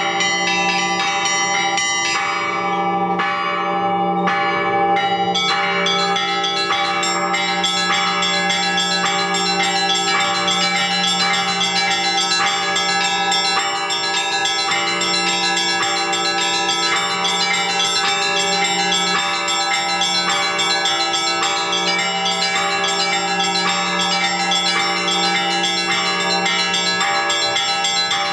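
Orthodox church bells rung by a bell-ringer: small treble bells struck in a fast, evenly repeating pattern over the long hum of the larger bells. The small bells thin out for a few seconds near the start, then ring densely again.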